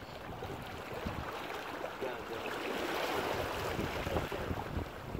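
Water washing at the shoreline with wind buffeting the microphone; a louder rush swells up about two seconds in and dies away near the end.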